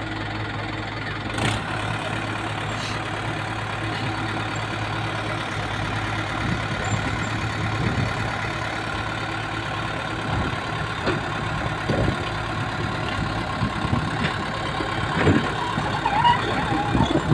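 Mahindra Arjun tractor's diesel engine running steadily while its hydraulics tip up a loaded trolley. A few thuds near the end as the soil starts sliding out of the raised bed.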